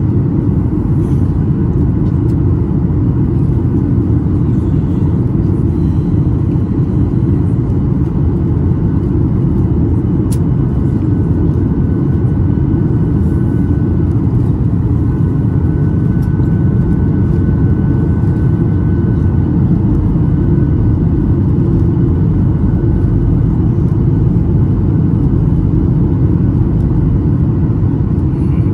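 Steady low rumble of engine and airflow noise inside a Boeing 737-800's cabin, heard from a window seat over the wing during the approach with the flaps extended. A single faint click comes about ten seconds in.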